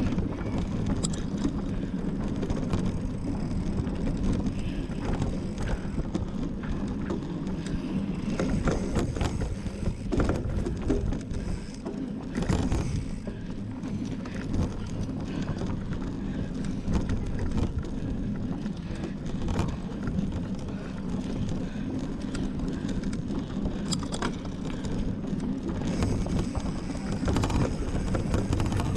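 Mountain bike being ridden along an off-road race trail: a continuous low rumble from the tyres and bike, with frequent short clicks and rattles from the chain and frame.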